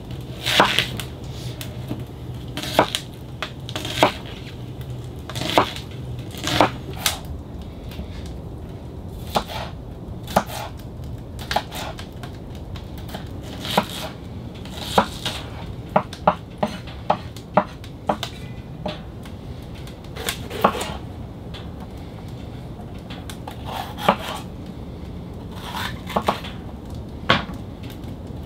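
Kitchen knife chopping an onion, and near the end a red bell pepper, on a wooden cutting board: irregular sharp knocks of the blade against the board in short runs with pauses between.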